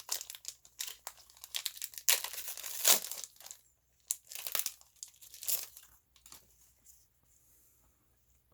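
Foil wrapper of a Pokémon booster pack crinkling and being torn open, loudest about two to three seconds in, then only faint handling.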